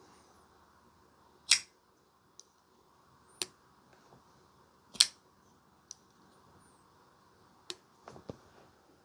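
DVO Knives Lush folding knife being flicked open and closed on its bearing pivot: four sharp metallic clicks a couple of seconds apart as the blade snaps out and locks, the loudest about halfway through, with fainter clicks between them.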